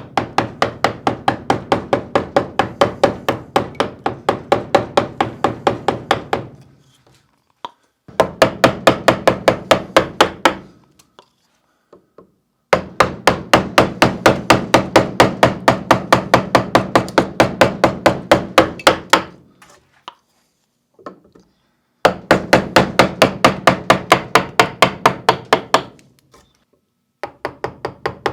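A mallet driving a carving gouge into wood: rapid, even taps about four or five a second, in runs of a few seconds broken by short pauses, as heavy gouge cuts are set in.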